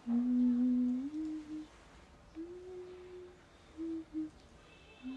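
A person humming a slow tune with a few held notes stepping up and down in pitch, with short pauses between phrases.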